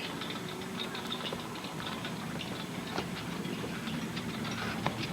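Cable car riding down the mountain: a steady low hum and rattle, with a couple of sharp clicks, one about three seconds in and one near the end.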